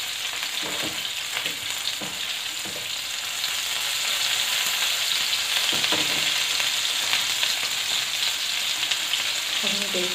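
Mutton-mince kababs shallow-frying in hot mustard oil in a pan: a steady sizzle with small crackles of spattering oil, getting a little louder about four seconds in.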